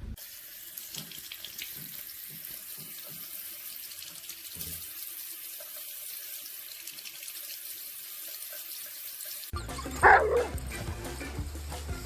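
Water running with a steady hiss. Near the end, after an abrupt change in the sound, a dog gives one loud yelp that falls in pitch.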